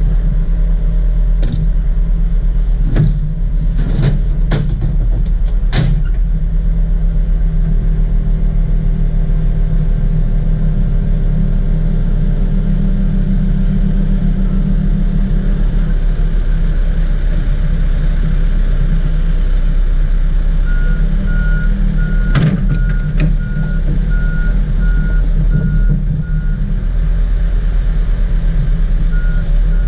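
Komatsu PC70 mini excavator's diesel engine running steadily under travel, with several sharp clanks and knocks in the first six seconds and another about 22 seconds in. A warning beeper starts sounding evenly spaced beeps about two-thirds of the way through.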